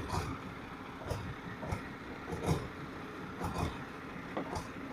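Heavy concrete truck's diesel engine running steadily, with short knocks coming irregularly about once or twice a second.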